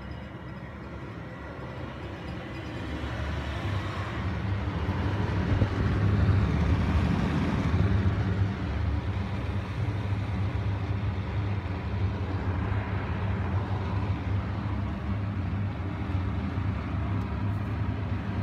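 Panasonic wall-mounted exhaust fan starting up. It spins up over a few seconds, getting louder, then runs steadily with a low motor hum under the rush of air.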